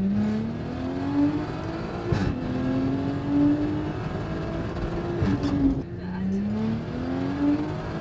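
Audi SQ5 engine through a loud Integrated Engineering cat-back exhaust with a catless downpipe, accelerating through the gears. The pitch climbs, drops at an upshift about two seconds in and again about five seconds in, then climbs once more.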